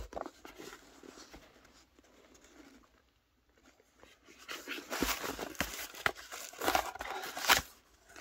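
Small cardboard box being handled and opened by hand: card and paper rustling and scraping, soft at first, then louder from about halfway with a few sharp knocks. It is loudest just before the end, as a paper card comes out of the box.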